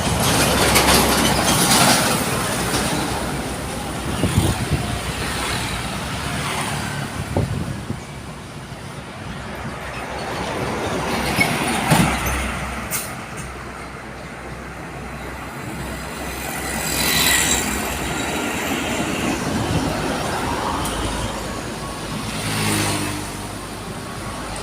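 Highway traffic: trucks and buses passing one after another, each swelling and fading, with the loudest passes near the start, about two-thirds through and near the end. A single sharp knock about halfway through.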